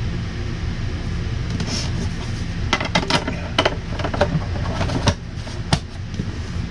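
A run of sharp clicks and knocks from handling the RV's electrical service panel while the water heater's breaker is switched off, over a steady low hum.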